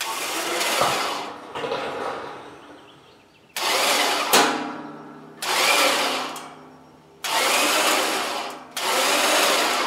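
Electric hoist motor lifting a steel table frame on chains, running in about five runs of one to two seconds, each cutting in sharply and then fading.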